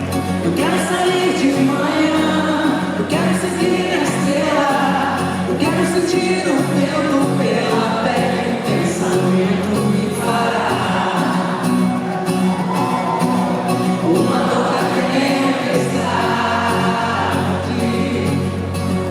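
Live pop song: singing over a band accompaniment with a steady low bass line, sung phrases with held, bending notes.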